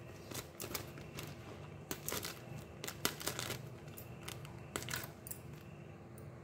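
Clear plastic zip-lock bag crinkling, with faint irregular clicks, roughly two a second, as a wooden toothpick is poked through it again and again to punch holes.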